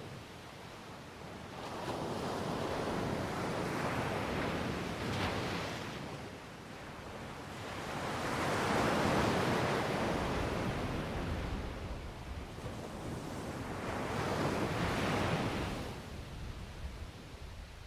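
Ocean surf breaking on the shore, the wash swelling and fading every few seconds, with the biggest surge about nine seconds in. Wind buffets the microphone underneath.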